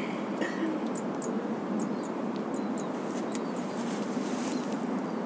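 Small birds giving short high chirps every so often over a steady outdoor background hiss, with a few faint ticks a little past the middle.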